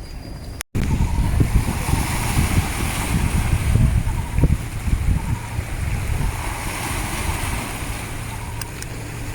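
Wind buffeting the microphone, a loud uneven low rumble, over a steady hiss of waves at the seawall. It starts suddenly after a brief silent cut about a second in.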